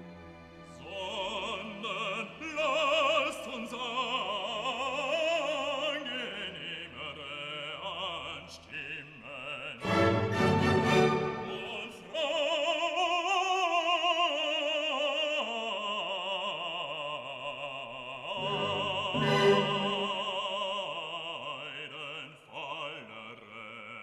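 Background music: a classical piece with an operatic voice singing long notes with wide vibrato over orchestral accompaniment.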